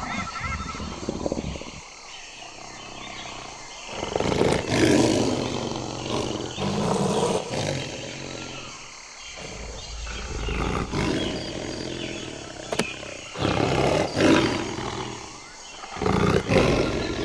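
Tiger roaring, a series of about five loud calls with short pauses between them, starting a few seconds in.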